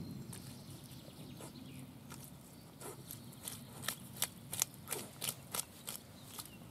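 A Norwich terrier rooting with its snout in wet mud and plants. About three seconds in, a quick run of sharp, wet clicks and snaps starts, several a second.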